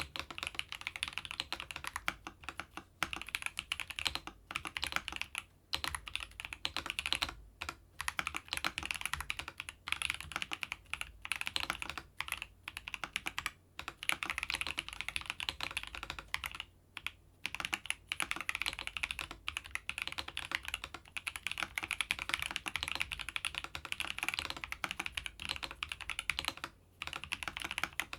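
Continuous typing on a Keychron V3 Max mechanical keyboard with banana switches: fast runs of key clicks broken by brief pauses.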